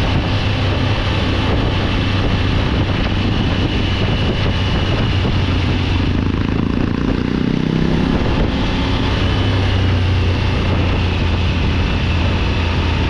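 Triumph Tiger 900 GT Pro's three-cylinder engine running steadily under way, with wind noise over the microphone. The engine's pitch falls for a moment about halfway through, then holds steady again.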